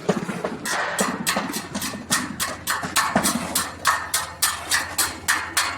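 Hammer striking the steel frame in a fast, even series of sharp metallic knocks, about four a second.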